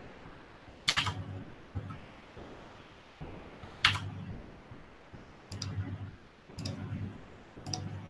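Sharp clicks from working a computer's mouse or keys, five in all, spaced a second or more apart, each with a soft low thud around it.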